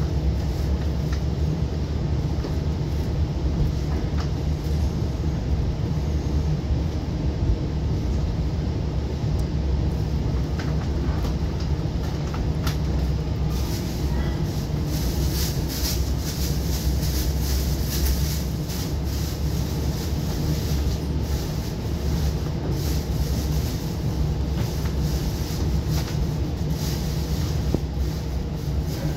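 A DM30AC-hauled Long Island Rail Road train in motion, heard from on board: a steady low rumble with a constant hum. About halfway through the wheel and rail noise grows brighter, with more hiss and quick clicks.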